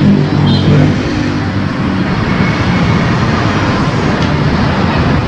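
Cosmos electric fan running after its restoration, a steady loud whooshing whir.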